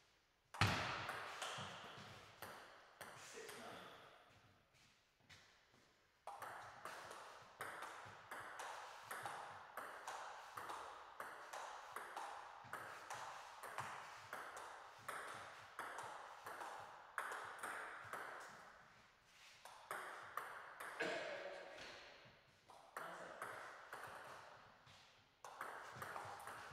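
Table tennis ball clicking off the bats and the table during rallies: sharp, hollow ticks in a quick, even rhythm. There is a louder single knock about half a second in.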